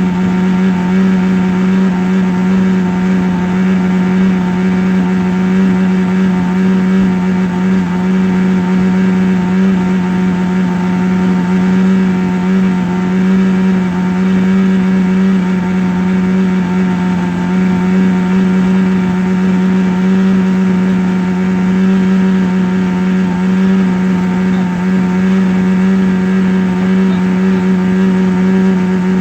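A steady, loud buzzing hum holding one low pitch with many overtones and a rough, grainy edge, like a small motor or vibrating device, unchanging throughout.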